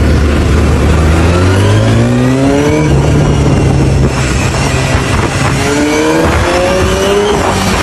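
Sport motorcycle engine running and revving up, its pitch climbing twice, with a slight drop in level about four seconds in.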